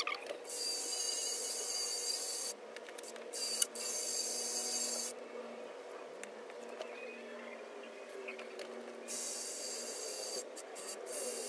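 Cordless drill spinning an abrasive bit against the rim of a 15-inch Cerwin-Vega Stroker Pro subwoofer's basket, scrubbing off the old foam surround and glue. It runs in three spells of high whining and scraping, with quieter pauses between.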